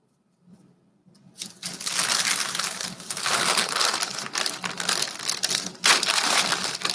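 Wax-paper wrappers of 1989 Bowman baseball card packs crinkling as they are handled and crumpled. The crackling starts about a second and a half in, with a sharper crackle near the end.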